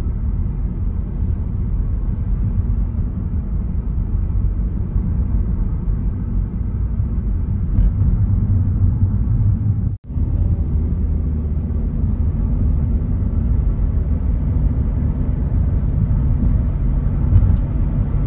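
Car driving, heard from inside the cabin: a steady low rumble of tyre and engine noise. It cuts out for an instant about ten seconds in.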